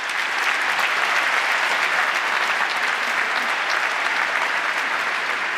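Large audience applauding steadily, the clapping thinning out near the end.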